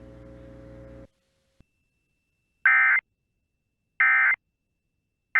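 Emergency Alert System end-of-message data bursts: short, identical buzzy digital tone bursts about a second and a third apart, two in full and a third beginning right at the end, signalling that the warning broadcast is over. Before them a faint steady hum of dead air cuts off about a second in.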